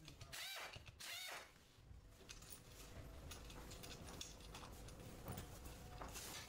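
Faint handling of small metal parts: a few soft clicks as aluminium camshaft bearing caps are set onto a cylinder head, with two brief squeaks about half a second and a second in.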